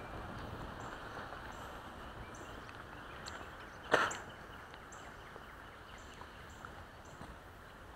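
Outdoor ambience: a steady low background rush with short, high chirps repeating about once a second, and a single sharp knock about four seconds in.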